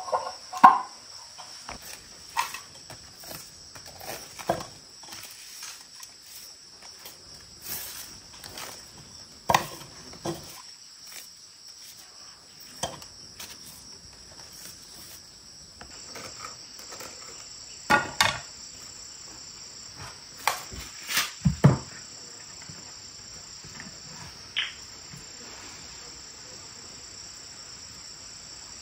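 Steady high-pitched insect chirring, with scattered knocks and clatters of things being handled; a few louder knocks fall past the middle.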